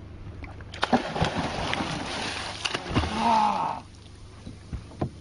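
Water splashing with scattered knocks for about three seconds, then dying down: a hooked fish thrashing at the surface as it is pulled up.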